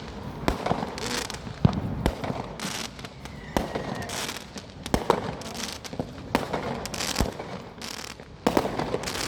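Multi-shot firework cake (barrage) firing its shots one after another: sharp bangs at irregular spacing, about one or two a second, with crackling in between.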